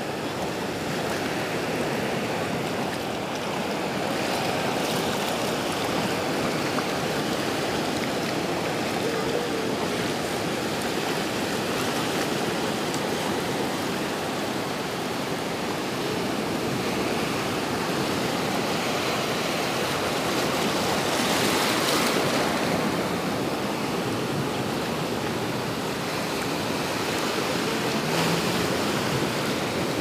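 Small sea waves breaking and washing up a shallow sandy shore: a steady rush of surf, with a louder surge about three-quarters of the way through.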